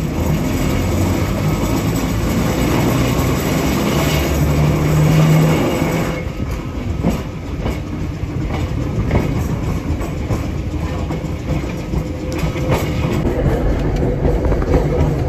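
Electric trolley car running along the track: a steady rumble of wheels on rail, with a few clicks over the rail joints and a low hum that rises briefly about four seconds in.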